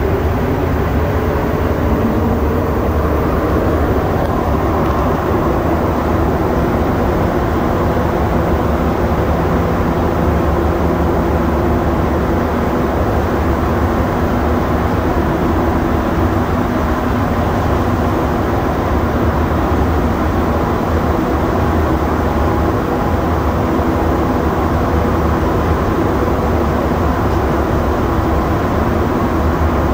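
Interior running noise of a rubber-tyred Montreal Metro Azur (MPM-10) train at speed in the tunnel. A steady rumble of the tyres and wheels on the track runs under the hum and whine of the traction motors, holding at an even level with no braking or stops.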